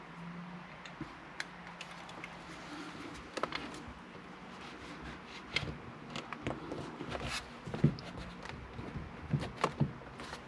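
Scattered light clicks and taps of hands working on a car's interior trim and wiring, irregular and spread throughout, with a few sharper knocks about three and a half and eight seconds in.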